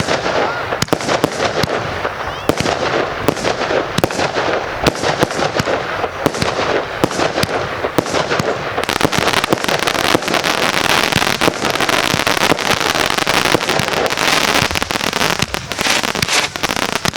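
A fireworks display going off: rapid bangs and cracks in quick succession. About halfway through, a dense hissing crackle builds up over them.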